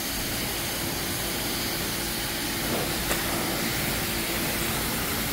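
Pressure washer running steadily: a motor hum under the even hiss of the water jet spraying.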